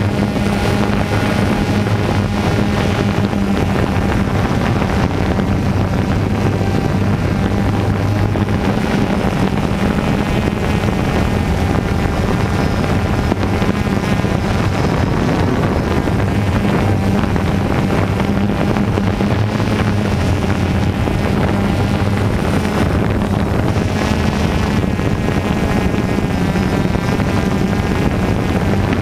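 DJI Phantom 2 quadcopter's motors and propellers running steadily in flight, a continuous hum picked up by the camera riding on the drone.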